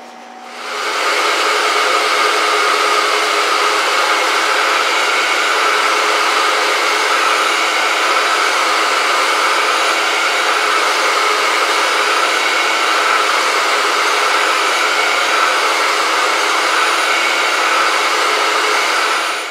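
Grizzly G5963 surface grinder running, its abrasive wheel grinding a steel parallel on a light down-feed of about a tenth of a thousandth: a steady whine with a hiss that builds up over the first second.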